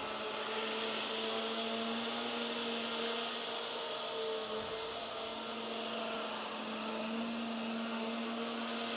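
Hoover WindTunnel Tangle Guard upright vacuum running steadily, a motor hum with a thin high whine over the rush of air.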